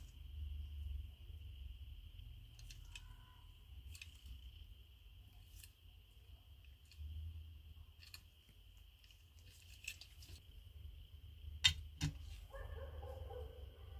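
Light scattered clicks and taps of diecast toy cars and plastic packaging being handled, with one sharp click about twelve seconds in and a short squeak right after it. A steady faint high-pitched whine runs underneath.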